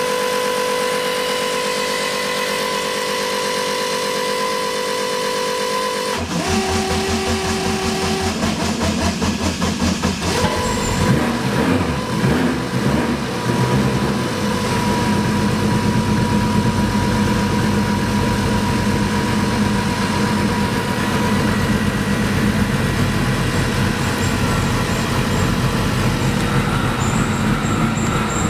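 A turbocharged Mitsubishi 4G63 inline-four being started for the first time after an intake manifold conversion. A steady high whine for about six seconds, then the starter cranks; the engine catches unevenly about ten seconds in and settles into a steady idle from about fourteen seconds.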